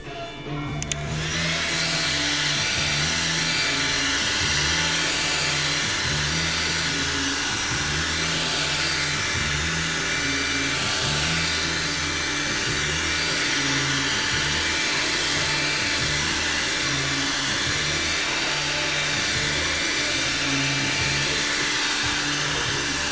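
Electric heat gun running steadily, its fan blowing a loud hiss of hot air. It switches on about a second in.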